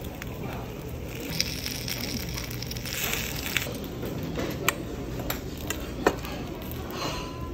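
Metal spoon stirring bibimbap in a stainless-steel bowl, with several sharp clinks of spoon against bowl a few seconds in.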